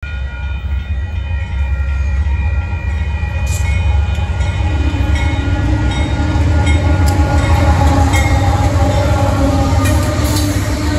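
Union Pacific diesel freight locomotive approaching and passing close by. Its engine rumbles heavily and grows louder as it draws level, and a steady higher tone joins about five seconds in.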